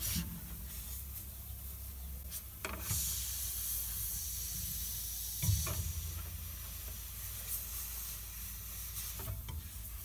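Refrigerant gas hissing out of the cut copper line of a refrigerator compressor, starting about three seconds in and then easing off, with a few clicks and a knock from pliers crimping the tube shut.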